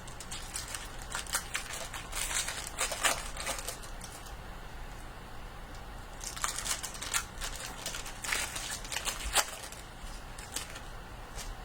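Plastic trading-card pack wrappers crinkling and tearing as packs are opened, in two spells of crackling a few seconds each.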